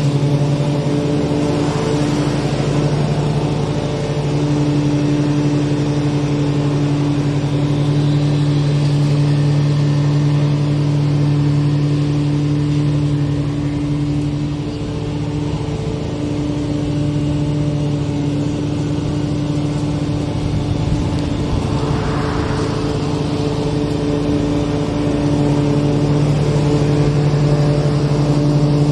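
Lawn mower engine running steadily under load while cutting grass and mulching leaves, its level dipping briefly a couple of times.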